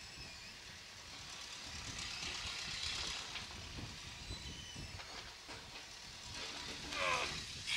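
Steady hissing outdoor countryside ambience, with a short call falling in pitch near the end, like an animal's bleat.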